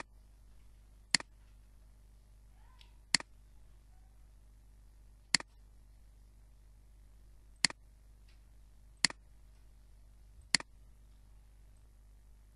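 Computer mouse clicking: seven single sharp clicks at irregular intervals of about one to two seconds, over a faint steady hum.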